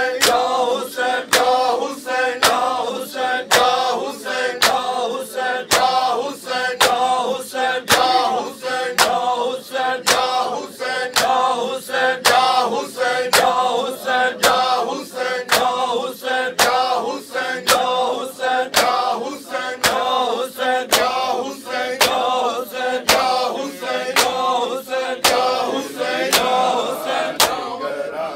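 Men's voices chanting a noha together, over a steady beat of sharp slaps of open hands on bare chests in matam, about one and a half slaps a second.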